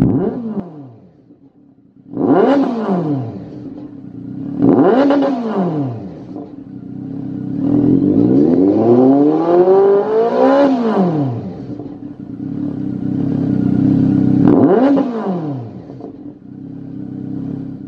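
Honda CB1300's inline-four engine through a Lextek YP4 aftermarket silencer, idling and revved with the bike standing still. Four throttle blips each rise and fall back to idle; the third is a slower, longer rise to a higher peak.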